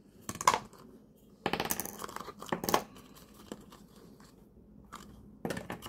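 An opened Kinder Surprise Maxi egg's plastic toy capsule and the small plastic toy pieces inside being handled: several short bursts of crinkling, scraping and light plastic clicks. The loudest comes about a second and a half in, with a few soft ticks near the end.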